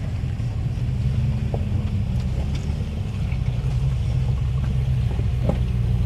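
Off-road vehicle engine running steadily at low revs, a low even rumble, with a few faint clicks over it.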